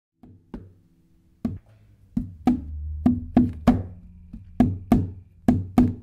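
Opening of a music track: a string of short, sharply struck notes, each with a low tone that dies away, sparse at first and coming faster from about two seconds in.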